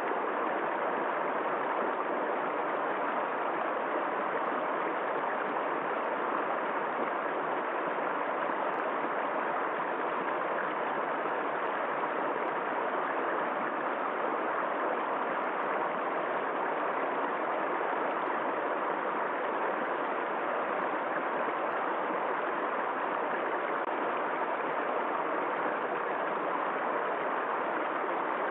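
River water flowing in a steady, unbroken rush, with no separate splashes or changes.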